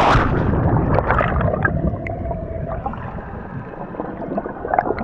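Muffled underwater rush and gurgle of air bubbles just after a plunge into the sea, heard with the microphone below the surface. It is loudest at the start and dies down over the next few seconds.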